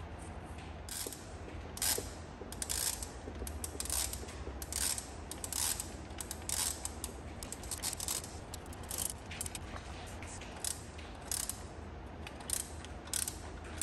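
Ratchet wrench clicking in short bursts every second or so as the serpentine belt tensioner's mounting bolts are run in on a Chevy 5.3 V8, over a steady low hum.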